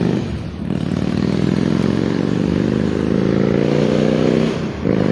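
A loud passing road vehicle's engine accelerating hard, its pitch climbing through a long gear. It drops briefly at a gear change about half a second in and again near the end.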